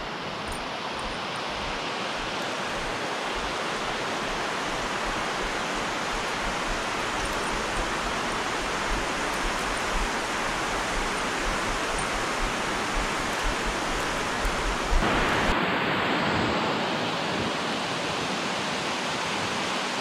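Water rushing and churning over a concrete spillway weir, a steady noise that grows louder and brighter about fifteen seconds in.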